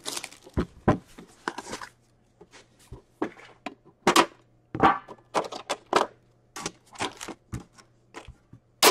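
Handling a metal trading-card tin: scattered clicks and knocks of the tin and its lid on a tabletop, with brief rustles of the card packs being taken out and laid down. The sharpest click comes near the end.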